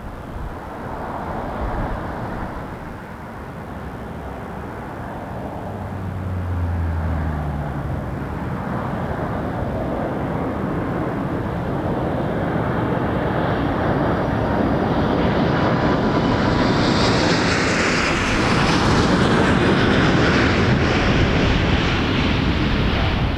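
Airbus A330-300 airliner's Rolls-Royce Trent 700 turbofan engines on final approach, a rumble growing steadily louder as the jet closes in and passes. A high engine whine joins the rumble about two-thirds of the way through, and the sound is loudest near the end.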